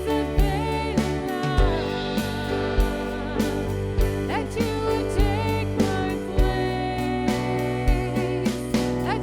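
Contemporary worship music: a full band with a steady drum beat, bass and sustained chords, and a wavering melody line on top.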